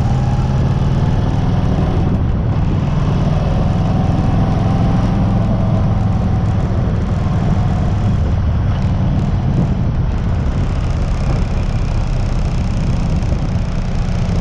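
1996 Harley-Davidson FLHTC's air-cooled Evolution V-twin engine running steadily at a constant speed, recorded by its owner to show an abnormal noise.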